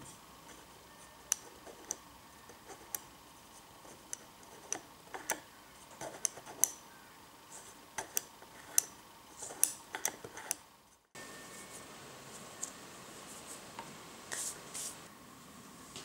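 Irregular light clicks and taps of small pallet-wood parts of a hand-made wooden lock mechanism knocking and sliding together as they are worked by hand. The clicks break off suddenly about eleven seconds in, with a few more soft clicks near the end.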